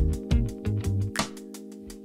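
Background music with a steady beat over held chords; the bass drops out about halfway through.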